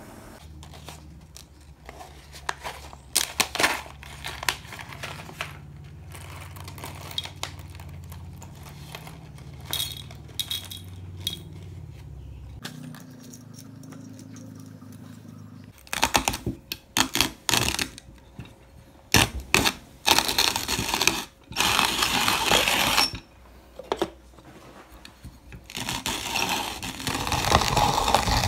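Wooden manual box coffee grinder crunching coffee beans, in loud irregular bursts of grinding that start about halfway in and grow denser. Before that, a low steady hum with scattered light clicks.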